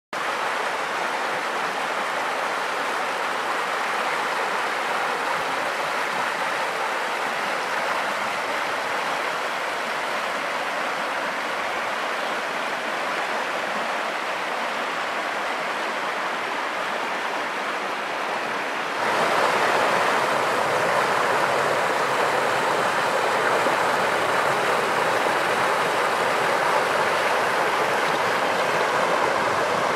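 Mountain river rushing over rocks and small rapids: a steady wash of water that gets suddenly louder and brighter about 19 seconds in.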